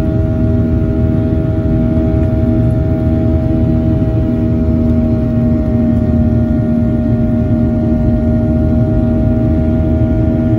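Cabin noise of a Boeing 737-800 climbing after takeoff: a steady deep rumble of airflow and its CFM56-7B turbofan engines, with a steady hum of several engine tones over it.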